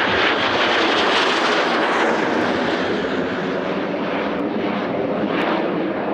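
Cessna A-37 Dragonfly jet flying past low, its twin General Electric J85 turbojets giving a steady, loud jet noise that eases slightly about halfway through.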